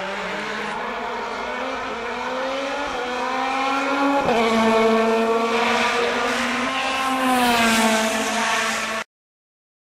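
Hyundai i20 rally car's engine revving hard as it drives past. The pitch climbs, drops sharply about four seconds in, climbs again and then eases off. The sound cuts off abruptly about a second before the end.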